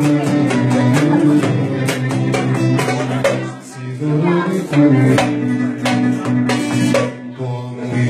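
Turkish folk-style music with a sustained melody over a steady, regular percussion beat.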